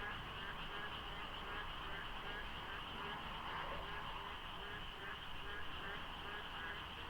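A dense chorus of many frogs calling over one another into a continuous din. Short croaks repeat about twice a second over a steady, higher, trilling band.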